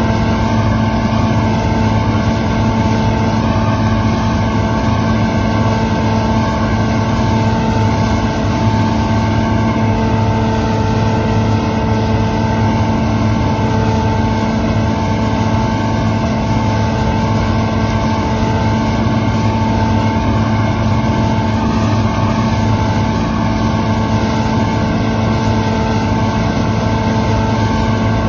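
Claas Lexion combine harvester running steadily under load, a constant engine and machinery drone with several held tones and no change in speed.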